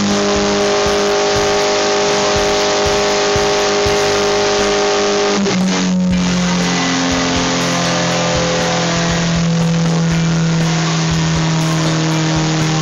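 Suzuki Hayabusa's inline-four engine running hard and steady on a chassis dyno, a constant high drone. About five and a half seconds in the pitch drops suddenly, then the engine holds a slightly lower drone that sags slowly.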